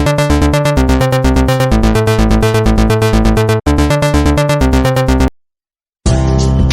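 Upbeat electronic intro music with a steady beat and synthesizer notes. It stops abruptly about five seconds in, and after a second of silence a different music track begins.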